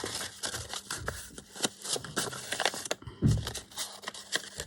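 Paper crinkling and rustling in irregular crackles as it is handled, with a soft low thump a little over three seconds in.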